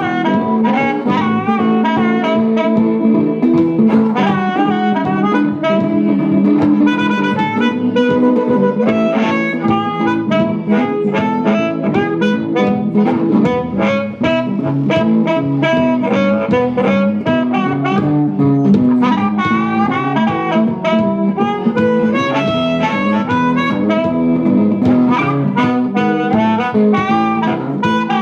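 Live blues music: an instrumental break with a lead melody line over a steady rhythm.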